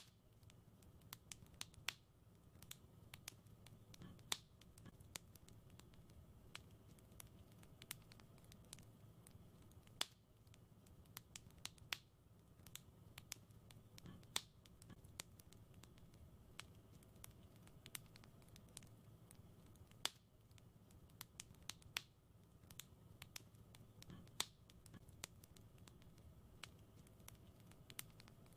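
Wood fire crackling in a fireplace: soft, frequent snaps and clicks with a louder pop every few seconds, over a low steady hiss.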